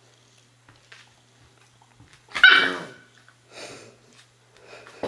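A wolfdog gives one short, sharp bark about halfway through, with softer yips after it, while a puppy and an adult dog play.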